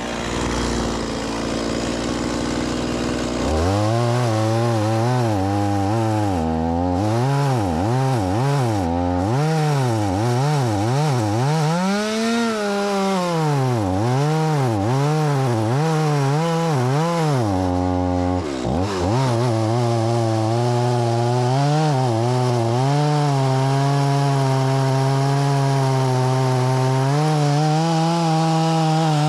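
Stihl MS 180 C-BE two-stroke chainsaw. It runs low for the first few seconds, then revs up and down over and over. After a brief drop around two-thirds of the way in, it holds steady at high revs, cutting through a log.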